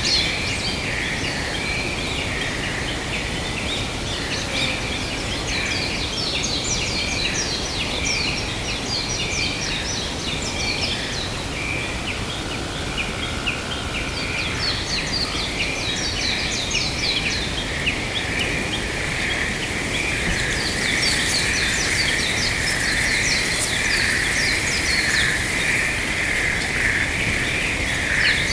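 Forest ambience: many small birds chirping rapidly over a steady high hum and a constant low background noise, the hum growing stronger in the second half.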